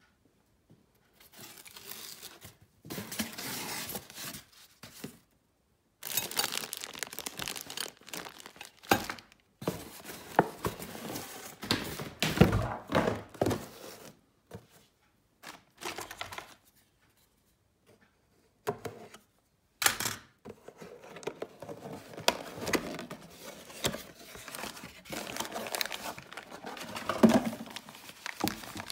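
Cardboard packaging being opened and plastic bags crinkling as they are handled, in irregular bursts with a few short pauses.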